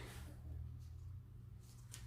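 Quiet room with a low steady hum and a faint short tick near the end.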